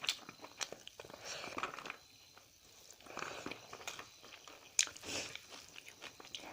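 Close-up sound of a person biting and chewing food, with irregular crisp crunches and mouth clicks; the sharpest crunch comes just under five seconds in.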